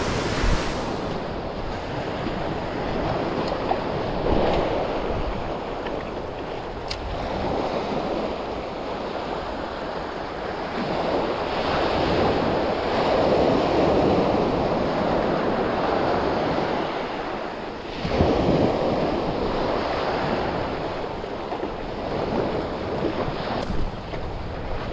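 Sea waves washing onto the shore, rising and falling in slow surges, with wind noise on the microphone.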